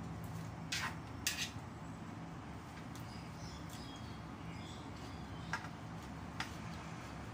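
Chopsticks clicking sharply against a plastic bowl a few times while salad is picked up and eaten, over a steady low hum.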